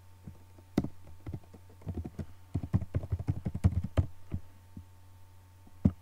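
Typing on a computer keyboard: an irregular run of keystroke clicks, then one louder click near the end, over a low steady hum.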